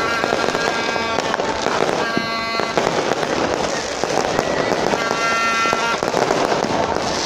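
Fireworks going off close by in a continuous barrage: dense crackling and rapid popping of aerial bursts, with no let-up.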